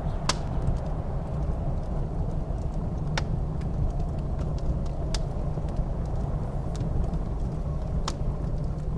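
Wood fire in a fireplace crackling, with four sharp pops, the first and loudest just after the start, over a steady low rumble of blizzard wind.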